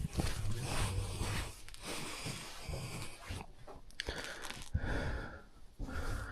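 A person breathing hard while moving over loose rock, with scuffing and crunching underfoot.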